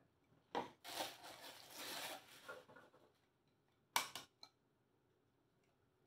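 Faint handling of a coffee grinder's parts and packaging: a click, about two seconds of soft rubbing and rustling, then a single sharp knock about four seconds in.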